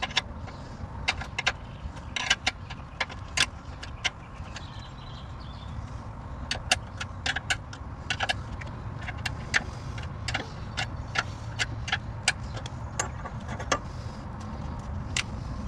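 Sharp, irregular metallic clicks and clinks from a ratchet and socket working a 10 mm bolt loose, one to two clicks a second with some in quick pairs. A low steady rumble runs underneath.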